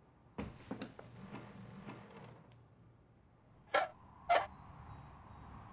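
A few light taps and rustles, then two sharp knocks on a wooden door about half a second apart.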